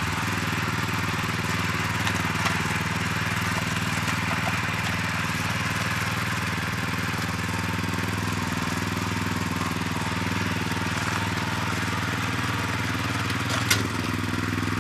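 Small walk-behind garden tiller's engine running steadily as it works the soil. One sharp knock near the end.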